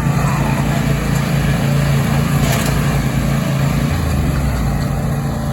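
Riding lawn mower engine running steadily at speed, with a small shift in its pitch about four seconds in.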